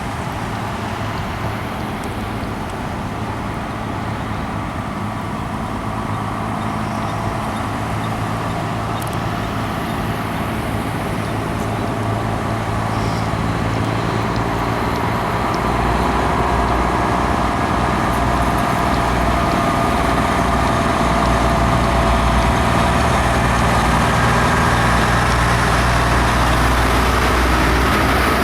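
Tow trucks in a procession, their engines running with a steady low drone that grows louder about halfway through.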